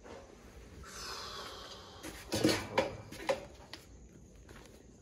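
Footsteps crunching on a floor littered with broken tiles and debris: a handful of sharp crunches a little over two seconds in, after a soft rustle.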